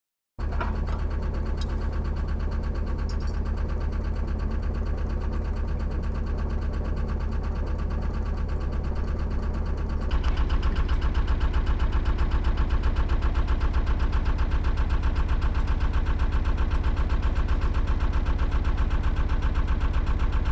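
Narrowboat's diesel engine running with an even, rapid beat. About ten seconds in it becomes louder and the beat stands out more.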